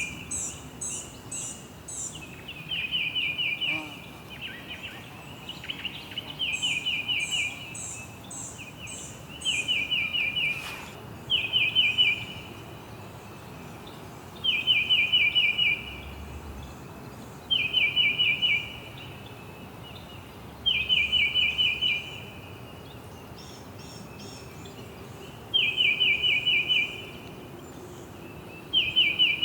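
Songbirds singing: a short, rapid trill of quick falling notes repeated about every three seconds, with runs of higher, thinner notes layered over it at times, against a steady background hiss.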